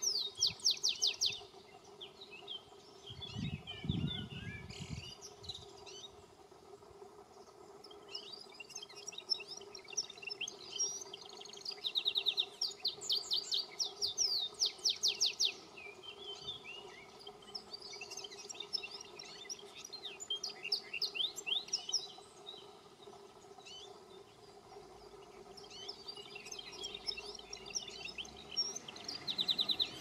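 Wild canary singing: bouts of quick twittering phrases and fast trills of rapidly repeated high notes, with short pauses between the bouts.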